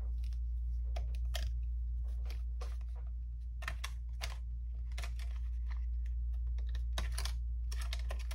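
Light, irregular clicks, taps and scrapes of fingers and small tools handling the internal parts of an opened MacBook Pro, over a steady low hum.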